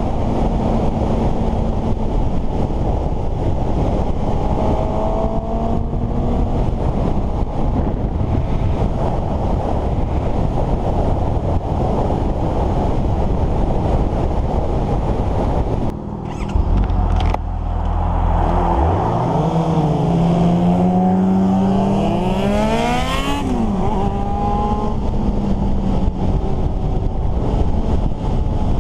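Suzuki GSX-S750's inline-four engine running at road speed under heavy wind rush on the microphone. After a brief dip about sixteen seconds in, the engine pitch climbs in rising sweeps for several seconds as the bike accelerates.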